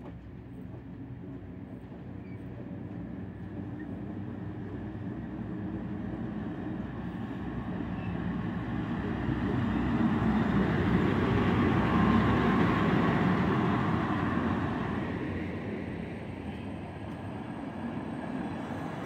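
PKP Intercity EP07 electric locomotive and its passenger coaches rolling along the rails. The rumble grows louder as the locomotive goes by, about halfway through, then eases as the coaches follow.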